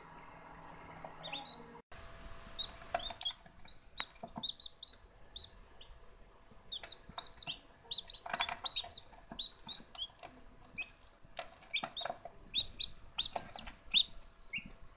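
Newly hatched Cheonggye (green-egg chicken) chicks peeping: many short, high cheeps that slide down in pitch, coming in clusters with brief pauses between.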